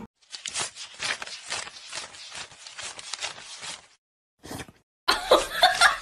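A stack of paper banknotes being flicked through by hand as they are counted: a rapid, irregular rustle and riffle of paper. After a short pause near the end, a louder, quicker rhythmic run of sharp sounds begins.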